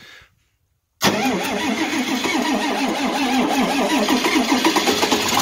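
John Deere 4020 tractor's starter cranking the engine hard, beginning about a second in after a short silence; it turns over strongly, so the batteries are not dead.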